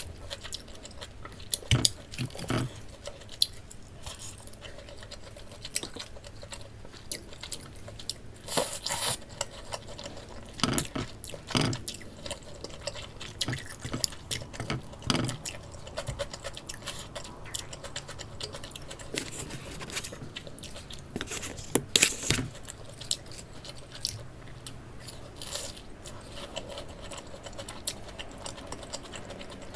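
A person biting and chewing crunchy food close to the microphone, with irregular crisp crunches and clicks.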